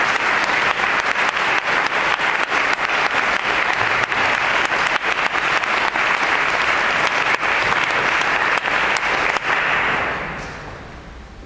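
Audience applauding, a dense patter of many hands clapping that dies away about ten seconds in.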